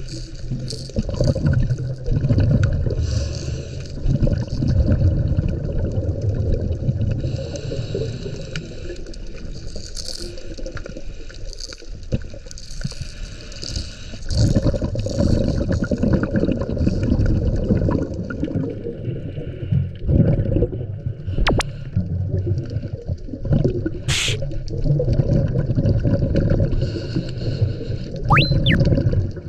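Underwater recording of a scuba diver breathing through a regulator: exhaled bubbles rumble and gurgle in repeated long bursts with quieter gaps between breaths. Two sharp clicks come in the last third, and a short rising squeak near the end.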